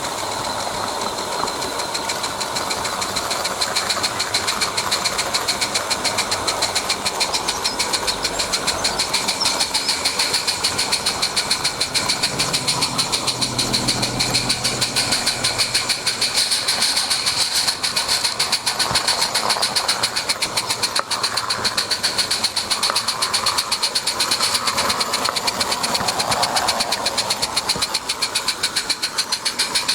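SM32 garden-railway goods train running along the track, with a fast, even clicking beat and a hiss.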